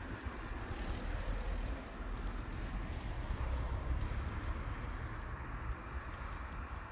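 Road traffic running steadily along a busy road and highway, with wind rumbling on the microphone and a few faint sharp ticks.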